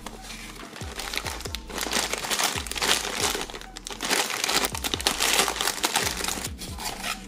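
A clear plastic bag and the paper packaging inside it crinkling as they are handled. The crinkling grows loud about a second and a half in and keeps coming and going.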